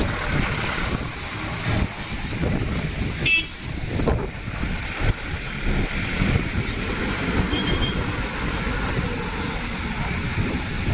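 Road traffic noise: vehicle engines running with a steady low rumble, and a brief horn toot about three seconds in.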